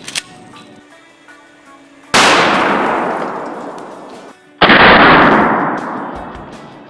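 Two loud 12-gauge pump-action shotgun shots, fired with slugs, about two and a half seconds apart. Each cuts in suddenly and fades out over about two seconds.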